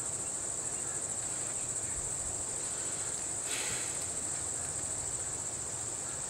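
Insects droning in a steady, high-pitched chorus, with a brief burst of noise a little past halfway.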